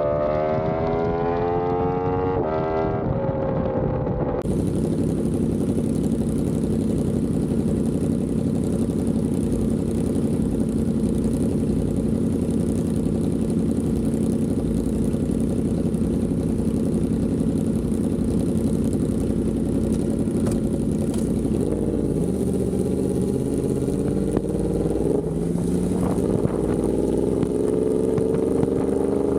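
Yamaha R1M's crossplane inline-four with an SC Project exhaust, ridden on the highway. The engine note climbs at first, holds at a steady pitch for most of the stretch, drops and wavers as the throttle is eased, then climbs again near the end as it accelerates.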